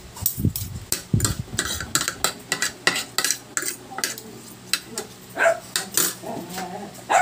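Metal spoon and fork clinking and scraping against a ceramic plate while eating: many sharp, irregular clinks, with a couple of dull low thuds in the first second and a half.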